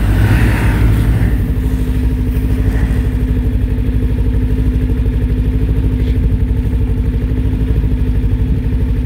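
Ski-Doo snowmobile's Rotax ACE four-stroke engine running steadily under way on a snowy trail, a low even drone that holds one pitch.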